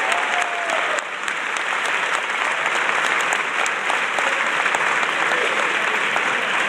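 Audience applauding steadily with dense clapping, and a brief whoop just after the start.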